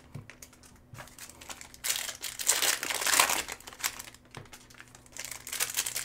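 Foil wrapper of a Cosmic Chrome baseball card pack crinkling as the pack is torn open and handled, loudest for a couple of seconds in the middle, with softer rustling of cards around it.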